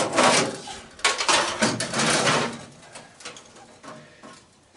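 Metal clattering and scraping from hands and tools working on an air-conditioning condenser unit's wiring and sheet-metal parts, busiest in the first two or three seconds and then dying down to a few faint knocks.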